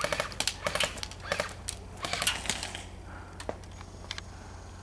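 A run of sharp, irregular clicks and crackles, dense for the first three seconds and then only a few scattered clicks.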